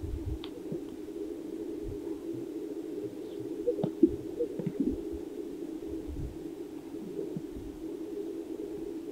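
Greater sage-grouse males displaying: low, bubbling pops from their inflated air sacs, the sharpest about four seconds in, over a steady low background hum.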